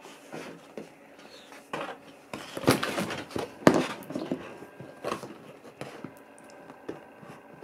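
A sheet of paper rustling and crinkling as it is handled and set up behind a small figurine, with a few sharp taps among the rustles, loudest around three seconds in.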